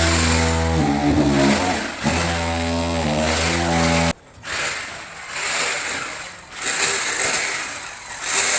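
A power tool running with a low hum that shifts in pitch and cuts off suddenly about four seconds in, followed by a rushing noise that rises and falls several times.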